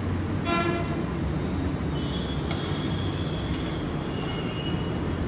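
Steady low rumble of kitchen background noise, with a brief high squeak about half a second in and a faint thin whistle-like tone from about two seconds in until near the end.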